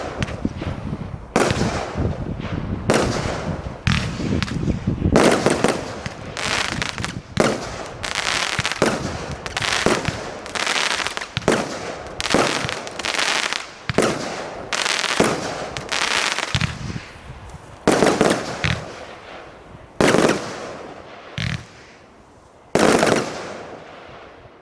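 Dynamic Fireworks 'Sparticus' firework cake firing a rapid series of shots, each bang trailing off, about one a second. The shots thin out near the end, with a last bang shortly before the sound cuts off.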